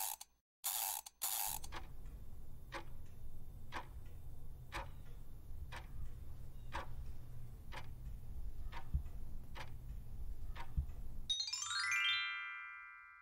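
Quiz countdown timer sound effect: a few short pops as the question and answer options appear, then steady clock ticking over a low pulsing bed. Near the end the ticking stops and a bright rising chime rings out and fades as the answer is revealed.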